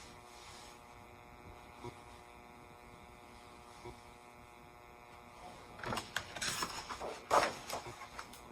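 Low steady electrical hum in a quiet room. About six seconds in come rustling and a few light clicks of paper handling, typical of a picture-book page being turned.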